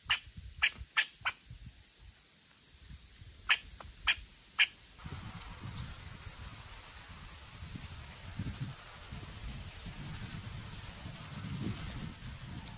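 Outdoor insect chorus: a steady high insect whine, with a cricket-like chirp pulsing about twice a second from about five seconds in. Seven sharp chip notes come in the first five seconds, and a low rumble sits underneath later on.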